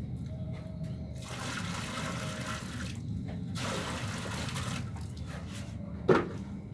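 Water poured from a small plastic bucket onto a heap of dry mortar mix, in two pours of a second or so each, then a single sharp knock near the end.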